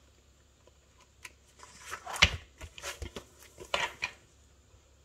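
Pages of a disc-bound paper planner being flipped and pressed flat by hand: a few short paper rustles and soft knocks, the loudest a dull thump about two seconds in, after a quiet start.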